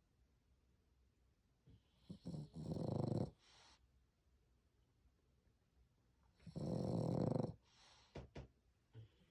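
French bulldog snoring very loudly: two long, rasping snores about four seconds apart, with short snorts and snuffles around them.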